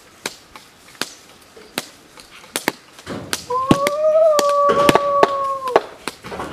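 Scattered sharp taps and clicks, with one long animal call held for about two seconds around the middle, rising slightly and then level.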